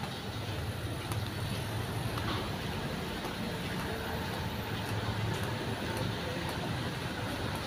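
Street traffic: a steady wash of car and pickup engines and tyre noise, with a low engine hum underneath.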